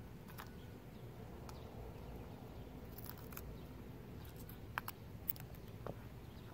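Faint outdoor background hum with a few small, sharp clicks, the clearest of them about three-quarters of the way through.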